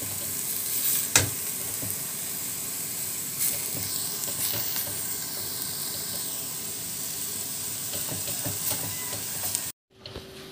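Ground pork sizzling as it fries in a stainless steel pot, stirred with a wooden spoon that scrapes and now and then knocks against the pot. The sizzle cuts off suddenly near the end.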